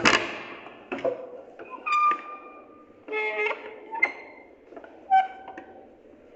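Music: a handful of separate plucked string notes, each struck sharply and fading, about one a second. The first is the loudest.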